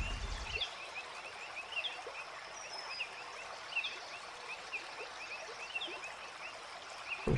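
A chorus of small animals giving short, high chirps at about the same pitch, several a second, with one thin falling whistle a little before the middle.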